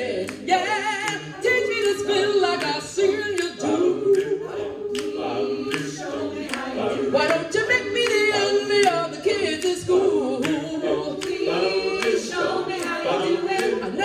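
Mixed-voice a cappella group singing, the ensemble holding chords while a solo voice sings with vibrato above them.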